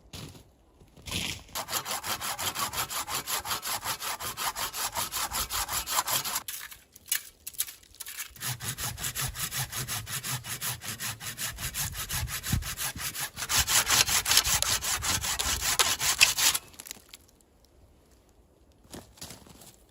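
Hand saw cutting through wood in fast, even back-and-forth strokes, about three to four a second. There are two long runs of sawing, with a pause of a couple of seconds between them.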